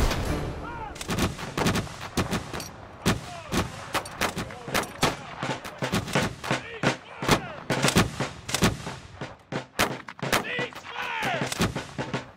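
Irregular musket fire: many sharp shots in quick, uneven succession from a line of flintlock muskets, with a shout of "Cease fire! Cease fire!" near the end.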